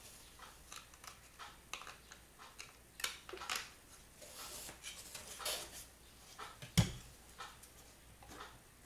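Faint rustling and small clicks of 3D-printed plastic parts and a ribbon cable being handled and fitted together, with one sharper knock about two-thirds of the way through.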